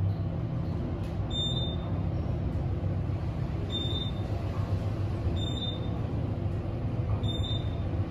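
Otis Gen2 traction elevator car riding up, with a steady low hum of travel. A short high beep sounds each time the car passes a floor, four times about two seconds apart.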